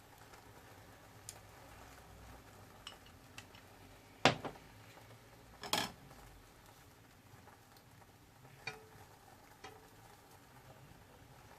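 Scattered sharp clinks of utensils knocking against cookware, the two loudest about four and six seconds in, over a faint steady background.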